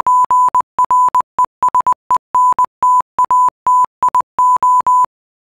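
Morse code: a single steady high beep keyed on and off in short and long marks, dots and dashes, stopping about five seconds in.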